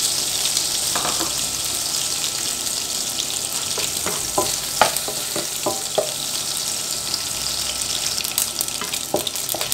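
Dried anchovies (teri) sizzling as they fry in hot oil in a wok, a steady hiss. A wooden spatula stirs them with a few short scrapes and taps against the pan.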